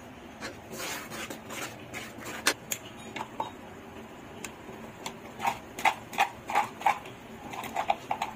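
A spatula stirring a thick beef curry in a metal karahi, scraping and knocking against the pan. The knocks are scattered at first, then come in a run of about three a second in the second half.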